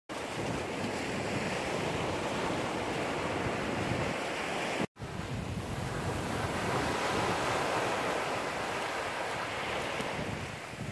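Sea surf washing and breaking on a beach: a steady rushing of waves, cut off for an instant about five seconds in before continuing.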